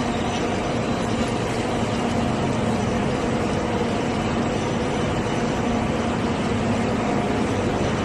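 Recycling-line machinery running: a steady, even mechanical din with a low hum underneath.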